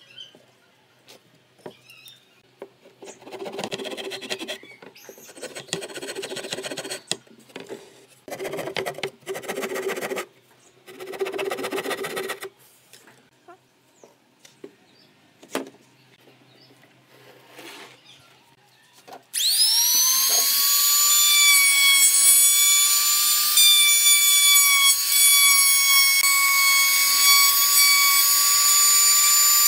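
Several short bouts of scraping handwork on wood, then a compact trim router spins up with a rising whine and runs at a loud, steady high whine while cutting into the edge of a wooden board.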